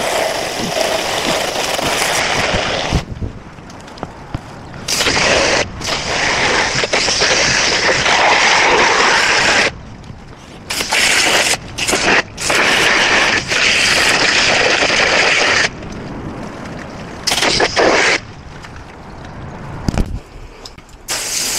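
Water spraying from a hose spray wand into a roof gutter and downspout in several bursts of a few seconds each, switched on and off. The water is flushing out dirt that may have dried into a hard plug in the downspout.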